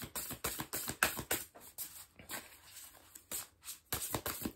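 A deck of tarot cards shuffled overhand by hand: a quick run of soft card flicks and slaps that thins out and pauses briefly past the middle, then picks up again near the end.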